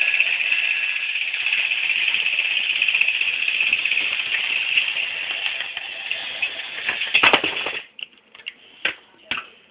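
Battery-powered toy train engine running along plastic track, a steady whirring rattle of its motor and wheels. A few loud clicks come near the end, then it cuts off suddenly, followed by a couple of separate knocks.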